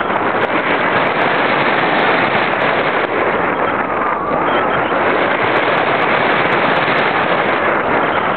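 Airflow rushing over an RC glider's onboard camera microphone in flight: a loud, steady, crackling wind noise.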